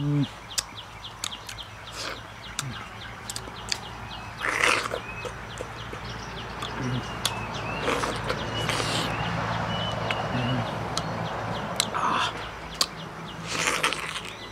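Close-up eating sounds of a whole ripe mango being bitten and sucked: wet mouth clicks and smacks, with three longer slurps about four and a half, nine and thirteen and a half seconds in.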